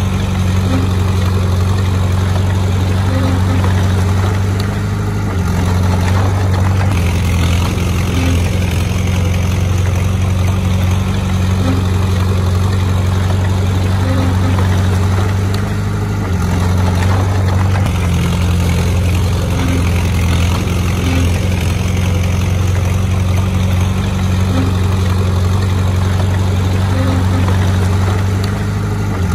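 Heavy earthmoving machine's engine, such as a bulldozer's, running steadily, its tone shifting slightly a few times.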